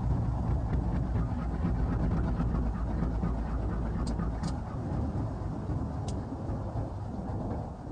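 Diesel locomotive engine idling with a low, steady rumble that slowly fades toward the end, with a few sharp high ticks about halfway through.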